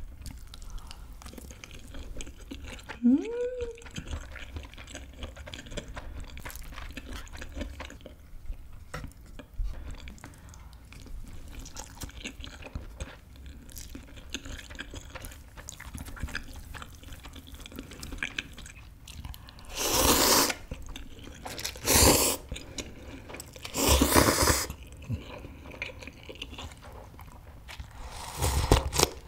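Close-miked mouth sounds of a person chewing a rice-ball burger, with a short rising hummed "mm" about three seconds in. Several loud slurping sips come near the end as she drinks ramen broth straight from the bowl.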